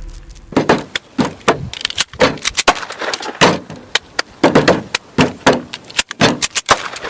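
A quick, irregular series of knocks and clicks, about three a second, starting about half a second in.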